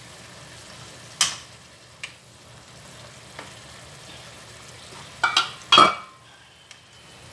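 A wooden spatula stirs vegetable strips through a sauce in a frying pan while the sauce sizzles steadily. The spatula knocks against the pan a few times: once about a second in, and twice, loudest, about half a second apart near the end.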